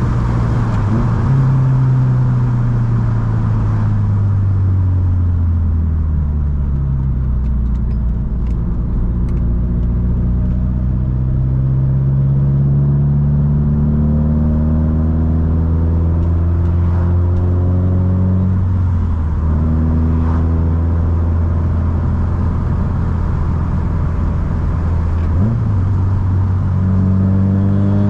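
Subaru STI's turbocharged flat-four engine pulling the car along, its pitch climbing slowly in long sweeps and dropping back twice, as at gear changes.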